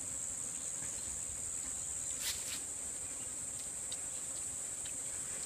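Steady, high-pitched drone of insects, with two faint clicks a little over two seconds in.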